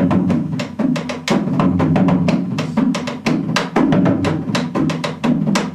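A large rope-tuned hand drum played live in a fast, driving rhythm, many strikes a second.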